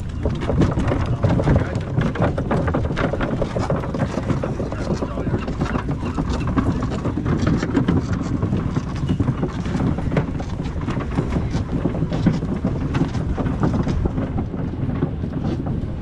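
Sportfishing boat underway: a steady low engine drone under wind and water noise, with frequent small knocks and clatter throughout.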